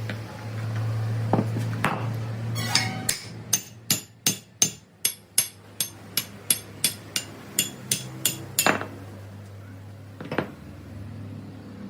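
Hammer striking metal in a quick run of blows, about three a second for some six seconds, with a couple of single blows before and one more afterwards, over a steady low hum.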